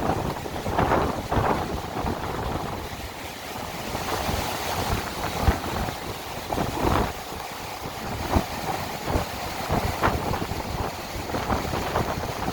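Storm wind gusting and buffeting the microphone, a rough rushing noise that surges irregularly.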